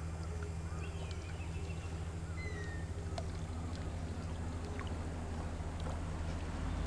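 A motor runs with a steady low hum. A few short bird chirps come in the first half, and a single click about three seconds in.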